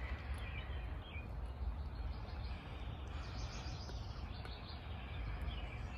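Steady outdoor background noise with faint bird chirps now and then.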